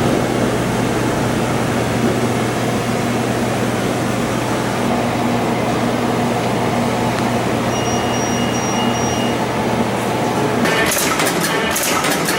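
CNC extension spring machine running with a steady motor hum; about ten seconds in, a rapid clatter of the coiling and hook-forming tools starts as spring production begins.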